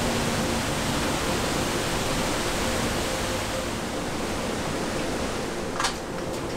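Steady rush of a large waterfall close by, an even wash of falling-water noise, with one short click near the end.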